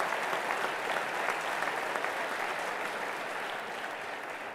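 Audience applauding, a dense steady clapping that slowly dies away toward the end.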